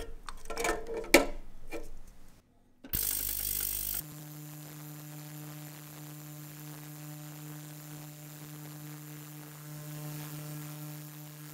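Bandelin Sonorex ultrasonic cleaner: a few clicks and knocks of metal watch-case parts in its wire mesh basket, then a brief loud rush about three seconds in as the bath starts, settling into a steady hum with a fine high hiss while the parts are cleaned.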